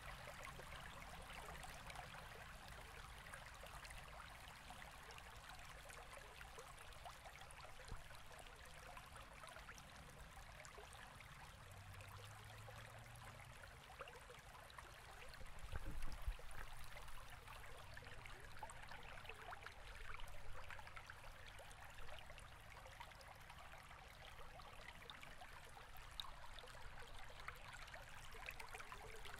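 Faint flowing creek water, a steady trickling rush, with a brief low rumble about halfway through.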